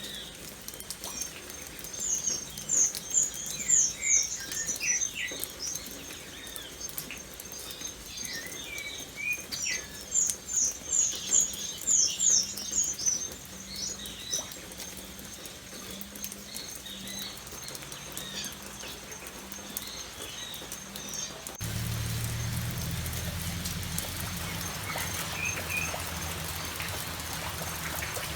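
Birds chirping in two bursts of rapid, high-pitched notes over a light patter of rain. About 22 seconds in, the sound switches abruptly to steady, louder rain.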